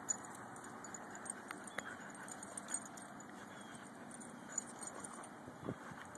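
Two large dogs, a husky–German shepherd mix and a husky–malamute mix, play-wrestling on grass, their collar tags jingling in faint scattered clinks. A short low sound comes near the end.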